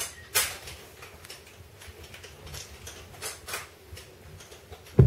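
Hand ink roller being rolled back and forth over the inked type on a Columbian printing press: a series of short hissing swishes of the tacky ink. A single low thump comes near the end.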